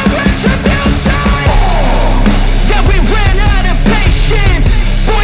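Loud background music with a steady drum beat and a singing voice; a deep bass note sets in about one and a half seconds in.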